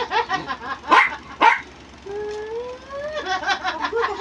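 Dog barking twice, then a long rising whine followed by a rapid run of short yips.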